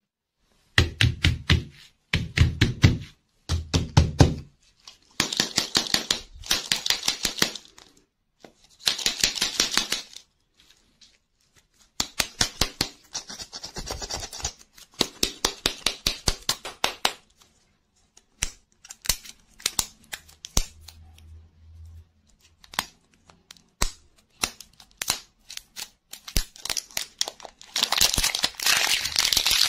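Plastic film wrappers crinkling and tearing as toy-lollipop capsules are unwrapped by hand, in repeated bursts with clicks and taps of the hard plastic shells between them. The crinkling is densest and loudest near the end, as a wrapper is peeled off.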